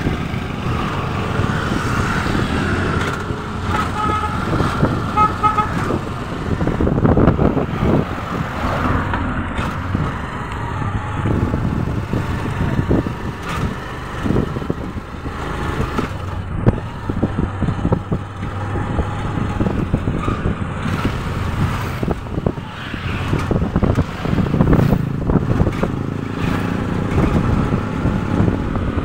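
Motorcycle engine of a tricycle running on the move, heard from the sidecar with road and wind noise. A horn sounds a string of short beeps about four to six seconds in.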